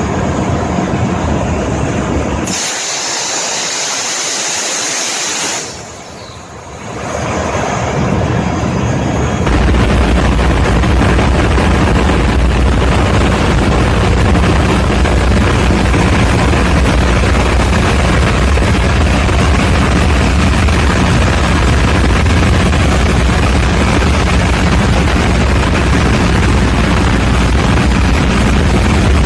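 Ship's diesel engine machinery running with loud, steady noise. A few seconds in, a high hiss lasts about three seconds while the deep rumble drops away. From about nine seconds in, a deeper, louder running sets in and holds steady.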